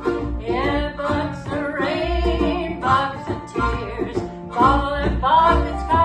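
Acoustic band music: plucked strings over a bass, with a gliding melody line on top.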